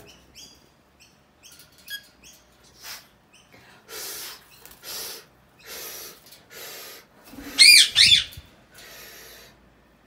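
A lorikeet chattering: faint short chirps, then a series of breathy rasps about once a second, then two loud, shrill screeches about seven and a half seconds in.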